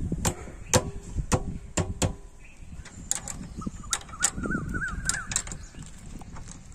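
A series of sharp clicks and knocks, some with a short metallic ring, from hand-tool work under the fuel tank of a Yamaha RX100 motorcycle. Around the middle a bird chirps a quick run of short rising notes.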